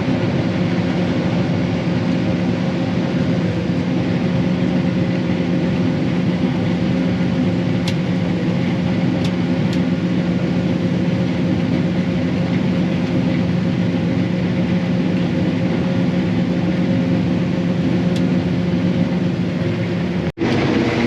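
Combine harvester running steadily while harvesting soybeans: an even engine and machinery drone with a low hum, cutting out for an instant near the end.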